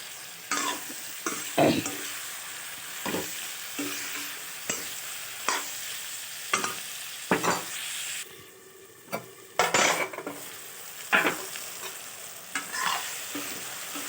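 Local chicken pieces frying in oil in a pan, sizzling steadily, with a spatula stirring and scraping against the pan about once a second. The sizzle briefly drops away about eight seconds in, then comes back.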